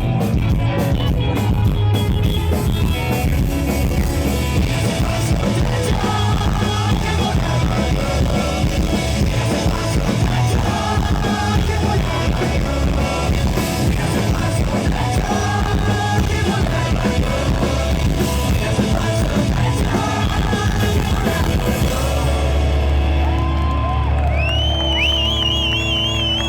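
Live rock band playing loud and fast, drums and electric guitars with shouted vocals. About four-fifths of the way through, the drums stop and a held low chord rings on, with high wavering tones over it.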